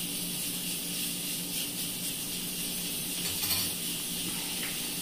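Soft, faint scraping and squishing of a spatula stirring a yeast-and-milk mixture into flour in a plastic bowl, with one slightly louder scrape about three and a half seconds in, over a steady low hiss and hum.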